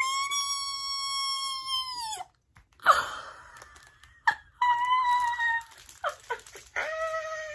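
A woman squealing with excitement. She gives a long high squeal of about two seconds, a sharp breath, then two shorter squeals, the last one lower and falling away.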